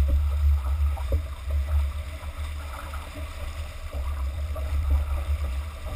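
Wind buffeting the microphone of a camera on a sailboat under sail, a strong uneven rumble, over the steady hiss and splash of water rushing along the J/80's hull. A couple of faint knocks come in the first second or so.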